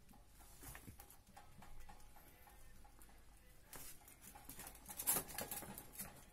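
Ferret lapping water from a plastic bowl: a faint, irregular run of small clicks, with a louder knock about five seconds in.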